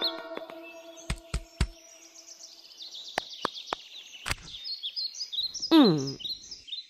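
Cartoon forest ambience of birds chirping and twittering, as the background music dies away at the start. A few soft thumps and sharp taps come in the first seconds, and near the end a single tone slides steeply down in pitch, the loudest sound.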